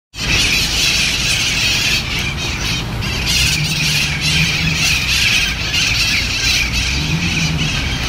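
Flock of feral parrots flying overhead, a continuous, loud chorus of harsh squawking, honking calls.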